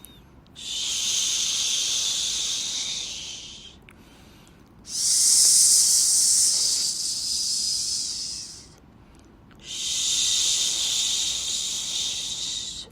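Shushing white noise: three long 'shhh' hisses of three to four seconds each, separated by pauses of about a second, each starting sharply and fading a little toward its end.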